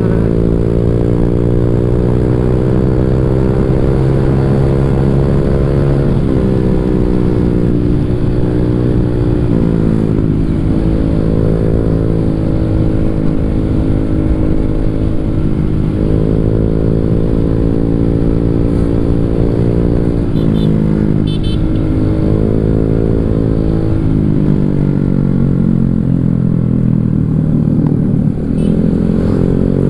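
Honda Vario 150 scooter's single-cylinder engine through an aftermarket Black Devil R2 long exhaust, under way: the note climbs slowly under throttle and drops back each time the throttle is eased, about five times, over steady wind rush on the microphone.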